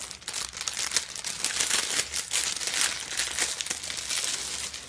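Tissue paper crinkling and rustling as hands handle and unfold it, an irregular run of small crackles.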